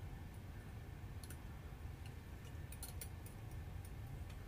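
Crumble concentrate crackling faintly in a hot dab-rig banger: scattered sharp ticks, several close together about three seconds in, over a low steady hum.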